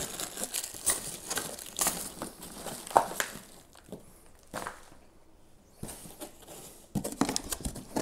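Packaging rustling and crinkling, with handling knocks, as coiled power cables and accessories are lifted out of a foam insert in a cardboard box. It comes in irregular bursts, with a lull about halfway through.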